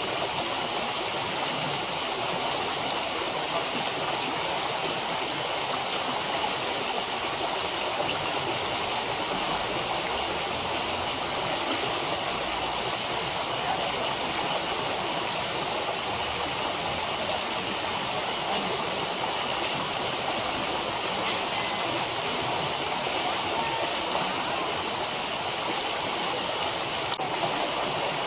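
Running water from a stream or waterfall, a steady even rush.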